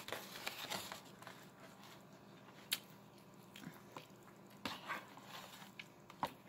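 Plastic knife cutting through pizza crust and scraping on the plate as a slice is lifted: faint scraping and crust crackle, with a few sharp little clicks scattered through.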